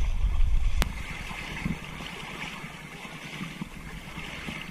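A low rumble on the microphone that stops with a sharp click about a second in, followed by faint water sloshing and splashing from wading in shallow water.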